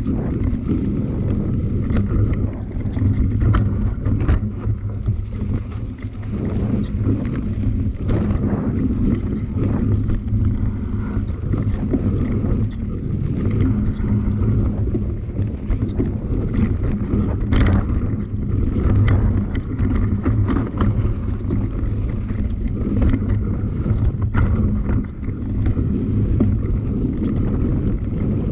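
Continuous low rumble and wind on the microphone from a moving ride, with steady humming bands and scattered sharp knocks and rattles throughout.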